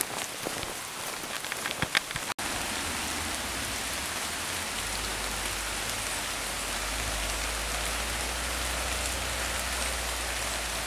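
Footsteps on a gravel track for about two seconds. After a sudden break, steady rain hisses for the rest, with a low rumble joining about halfway through.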